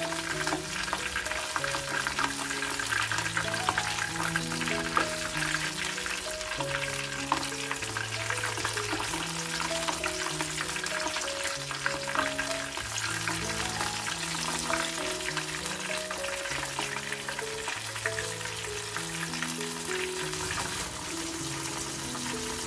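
Flour-coated king oyster mushroom pieces deep-frying in hot oil: a steady, dense crackling sizzle. A gentle background melody of held notes plays under it.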